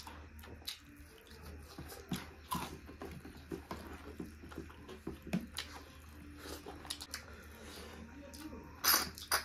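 Close-miked eating sounds of snail curry: a string of short sucks, smacks and clicks as snails are sucked from their shells and chewed, with the loudest couple of sucks near the end.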